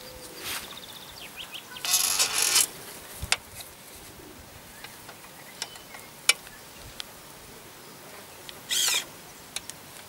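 Clicks and short scraping rasps of a DT Systems remote bird launcher's frame being folded shut and latched by hand. There is a loud rasp about two seconds in, a few sharp clicks, and another short rasp near the end.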